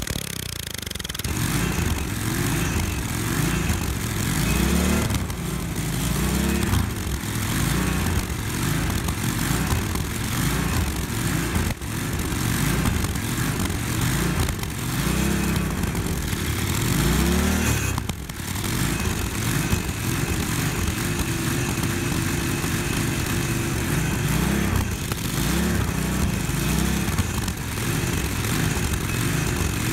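Small single-cylinder gas engine running, its speed rising and falling every couple of seconds, with thermite powder being fed in through the carburetor air intake.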